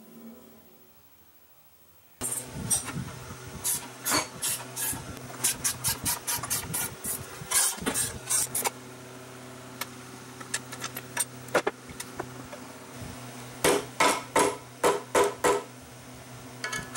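Hand-tool work on a benchtop milling machine's base: a run of quick metal clicks and taps, then a quick series of about half a dozen sharp blows from a soft-faced mallet striking a punch near the end, over a steady low hum.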